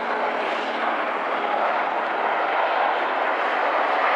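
Twin-engine Airbus A350 jet airliner at takeoff thrust as it rotates and lifts off: a steady rushing jet engine noise with little deep bass.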